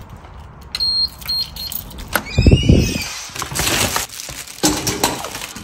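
Sounds in a car that has just been parked: two short high beeps, then a loud thump with a brief falling squeak, followed by rustling.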